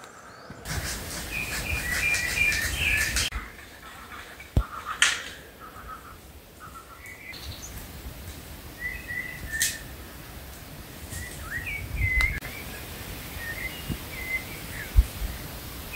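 Small songbirds chirping and calling in woodland, short bright notes scattered throughout, with a few sharp clicks and a low background rustle that changes abruptly several times.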